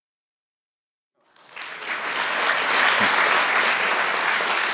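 Silence, then an audience applauding, the clapping fading in a little over a second in and holding steady.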